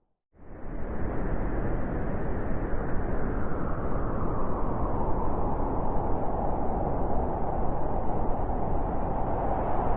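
Blizzard wind blowing in a dense, steady rush of noise, starting after a brief silence at the very beginning. The howl grows stronger around the middle.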